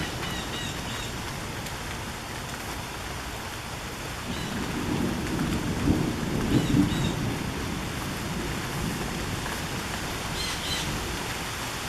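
Heavy rain pouring down in a steady hiss. A low rumble of thunder swells from about four seconds in and peaks twice before fading. A blue jay gives a few short calls faintly over the rain, the last near the end.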